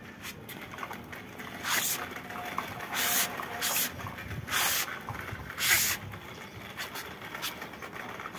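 Plastic toy dump trucks towed on a string, their wheels rolling over rough concrete with a steady gritty rolling noise and several louder hissing scrapes about a second apart.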